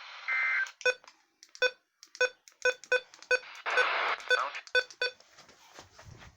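Weather radio receiver's button beeps: about ten short beeps as its keys are pressed to change channel, with brief bursts of radio static between some of them.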